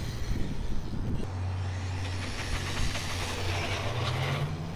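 Hosim X25 brushless RC car driving, with a noisy, scattered start and then a steady low hum from about a second in. The pitch rises near the end as it speeds up.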